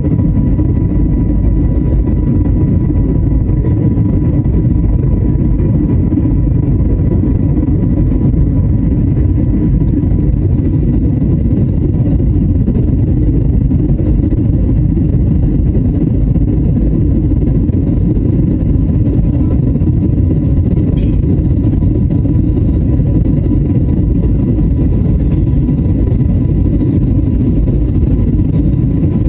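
Airliner cabin noise in flight: a steady, loud low rumble of jet engines and airflow, with a faint steady whine on top.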